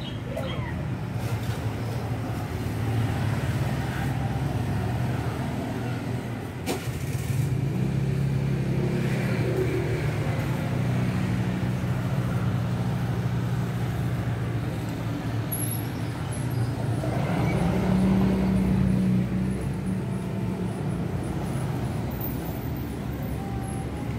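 Road traffic: motor vehicle engines running close by, a steady low engine hum that grows louder and fades again over several seconds.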